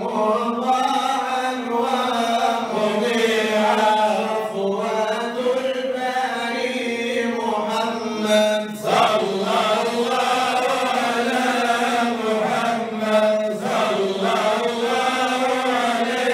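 Arabic Sufi devotional chant (inshad): a lead munshid singing into a microphone, with a group of men chanting along in unison in long drawn-out notes. There is a short break about nine seconds in.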